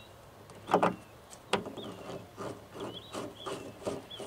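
Hand screwdriver driving a screw into a plastic mounting clip on a hood deflector: a knock and a sharp click, then short rubbing turns about three a second in the second half. A small bird chirps now and then behind it.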